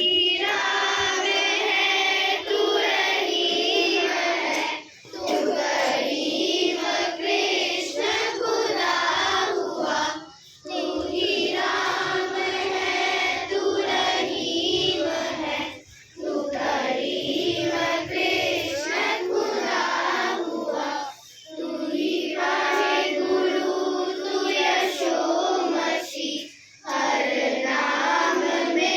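A group of children singing together, in phrases of about five seconds with short breaks between them.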